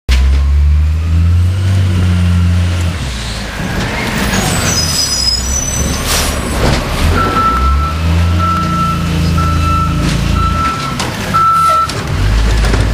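Diesel engine of a Peterbilt 320 automated side-loader garbage truck running, with a brief high squeal about five seconds in and an air brake hiss about a second later. Then a backup alarm beeps five times as the truck reverses.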